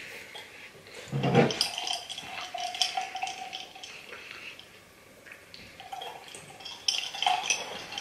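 Close-up mouth sounds of eating and drinking: sipping a drink through a straw, with swallows and small wet mouth noises.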